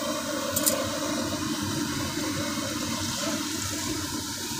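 Steady rushing noise of a gas burner running under a griddle, with one brief click about half a second in.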